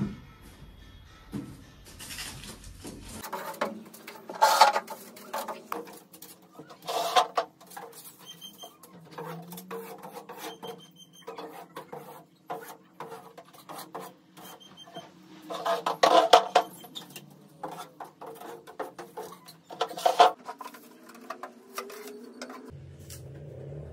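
A homemade duster on a stick brushing and scraping across a board ceiling to clear cobwebs, in irregular bursts of rustling strokes, some much louder than others.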